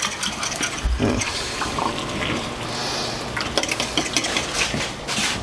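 A metal utensil stirring in a small stainless steel saucepan, with repeated clinks and scrapes against the pan, over a steady hiss.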